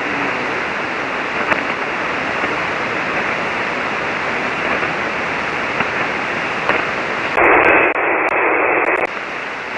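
Shortwave receiver on a 40-meter single-sideband frequency giving steady band noise and static with no station heard: the other station's signal has faded out, which the operator puts down to band conditions. The noise gets louder for about a second and a half near the end.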